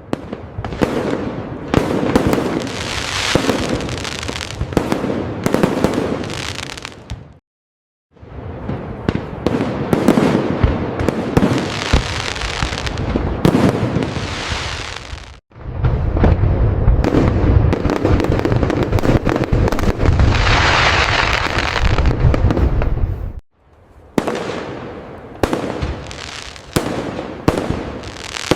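A fireworks display: dense, overlapping aerial bursts and crackles, with several sudden cut-outs to silence. A stretch in the middle carries a heavy, deep rumble under the bursts and is the loudest part.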